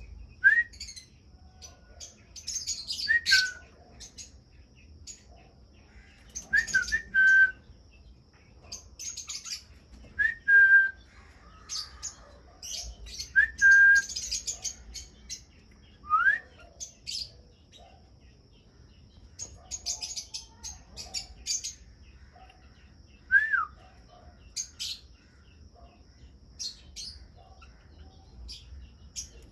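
Parrots in a mixed aviary calling: bursts of high chirping chatter every few seconds, with short clear whistled notes that slide up or down mixed in.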